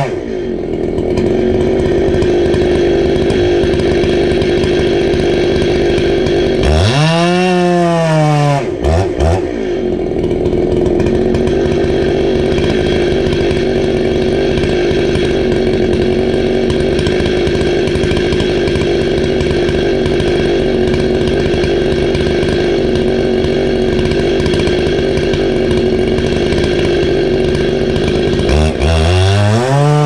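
Chainsaw idling steadily, with one brief throttle blip that rises and falls about seven seconds in, then revving back up to full speed near the end as the felling cut in the oak resumes.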